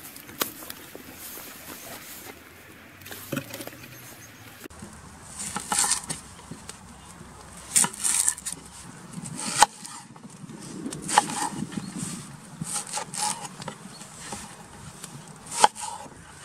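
Hands moving mushrooms and vegetables around in a bowl of water, then, about five seconds in, a kitchen knife peeling and cutting onions on a wooden cutting board: dry papery onion skin scraping and rustling, with several sharp knocks of the blade on the board.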